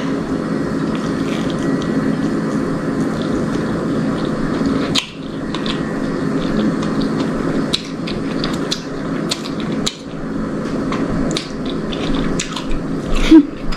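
A person biting into and chewing a slice of crispy-crusted homemade pizza: scattered short crunching clicks over a steady hiss.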